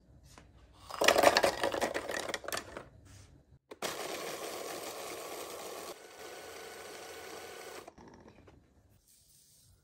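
Braun food processor chopping biscuits: pieces rattle loudly against the spinning blade and bowl for about two seconds, then after a brief pause the motor runs more steadily as the biscuits are ground to crumbs, stopping about two seconds before the end.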